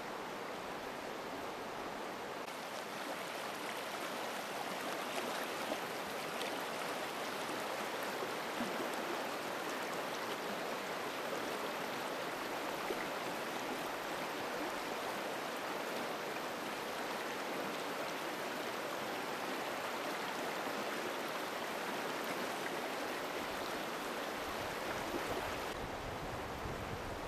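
Shallow river running over boulders and stones: a steady rush of water, a little fuller after about two seconds.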